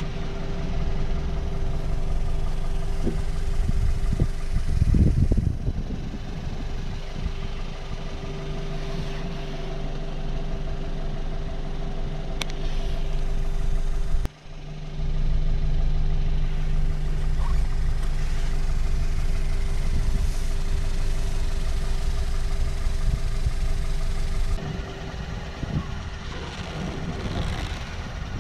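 Portable air compressor running with a steady whine over a low mechanical hum. The sound cuts out for a moment just after halfway, then runs on, and gets quieter a few seconds before the end.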